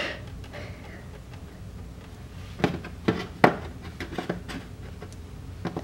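Plastic Play-Doh toy pieces being handled on a tabletop: a few short clicks and taps, starting about halfway through.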